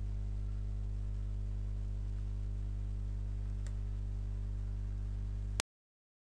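Steady low electrical mains hum in the recording's microphone line, with one faint click about three and a half seconds in; the sound cuts off suddenly to silence near the end.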